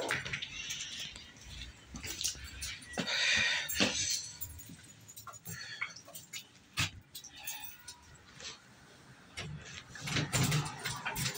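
Keys jangling, with scattered sharp clicks and knocks.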